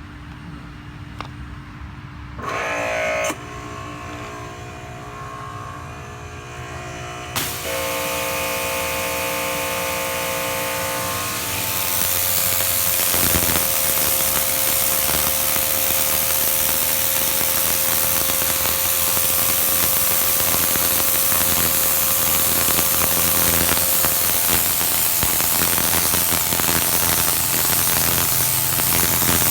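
Ryobi 2300 psi electric pressure washer: its motor and pump start briefly about two and a half seconds in, then start again a little after seven seconds with a steady whine. The turbo nozzle's water jet hisses against concrete, growing louder about twelve seconds in and holding steady.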